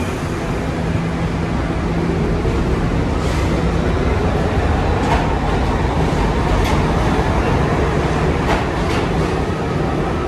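Subway train running: a steady heavy rumble with a rising whine about two seconds in and a few sharp clicks scattered through.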